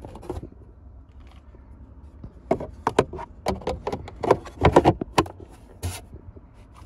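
A run of sharp hard-plastic clicks and knocks from a 2024 Toyota Tacoma's glove box and filter access trim being handled and pushed back into place, followed by a short rustle of papers being laid in the glove box.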